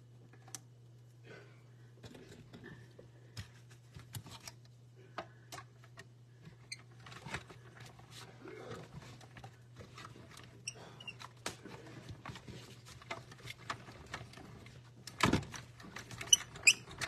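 Small clicks, taps and rustles of hands taping a die down with washi tape and stacking clear cutting plates on a manual die-cutting machine, then a few louder knocks near the end as the plate sandwich is run through the machine.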